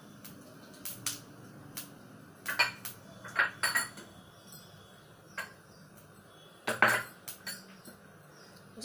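Steel kitchen utensils and dishes clinking: a series of sharp, irregular metallic clinks and taps, loudest around three and seven seconds in, over a faint steady hiss.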